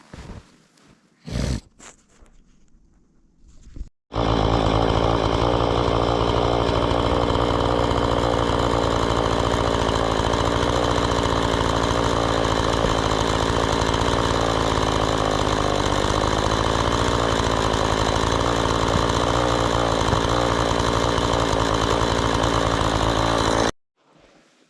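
A small engine running loudly at a steady, unchanging speed. It starts suddenly about four seconds in and cuts off abruptly near the end, after a few faint clicks.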